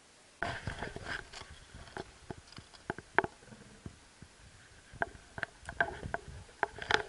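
Close rustling of dry grass with irregular clicks and knocks near the camera, starting about half a second in, as a Border Collie paws and noses at the grass right beside it.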